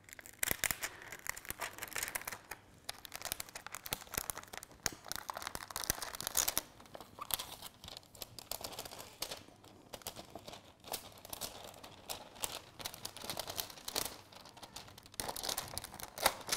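Thin clear plastic film crinkling and crackling irregularly as the release liner is peeled off double-sided optically clear mounting film and the sheet is handled.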